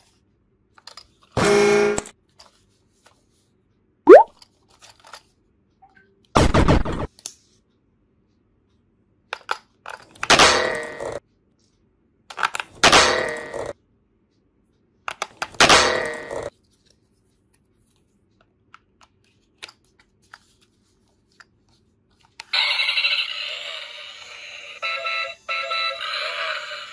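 A string of short sound effects, one every two to three seconds, the loudest a quick rising whoop about four seconds in. From about 22 seconds a battery-powered toy car with flashing lights plays a continuous electronic tune.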